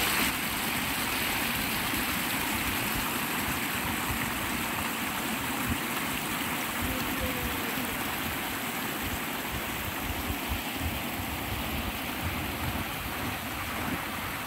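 Shallow stream water rushing over a rock slab and small rocky cascades, a steady even rush.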